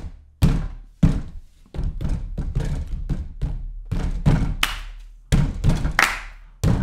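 Several people pounding their fists on a tabletop and clapping in a rough rhythm, loud, sharp thumps about every half second to second.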